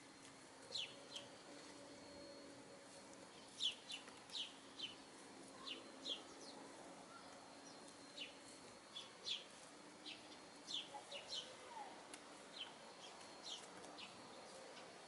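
Birds chirping: many short, high, falling chirps, one to three a second, scattered irregularly. A faint steady low hum runs underneath.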